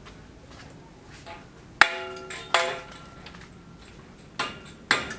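Hammer blows on metal: four sharp strikes at uneven intervals, starting about two seconds in, each ringing briefly.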